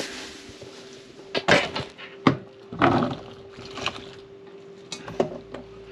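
Irregular knocks and clatter of kitchen things being handled, about half a dozen sharp hits spread over the few seconds, over a steady faint hum.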